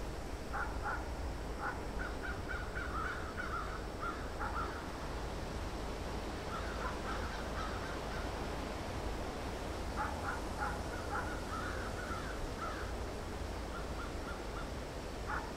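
Crows cawing in several bursts of short, repeated calls over a steady low rumble.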